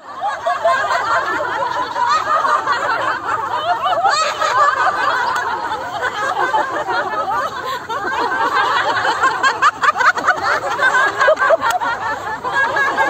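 A group of people laughing together in a laughter-yoga exercise: many overlapping voices giggling and laughing without a break.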